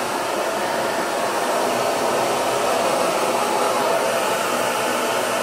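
Handheld hair dryer running steadily.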